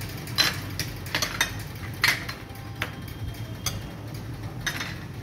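Steel spoon clinking against a glass mixing bowl as chopped ingredients are spooned in: about half a dozen separate sharp clinks spread over several seconds.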